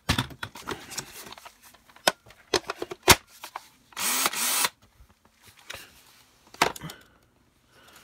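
Hard plastic clicks and clatter of cordless power-tool battery packs and tools being handled, with one sharp click about three seconds in and a short rustling scrape about four seconds in.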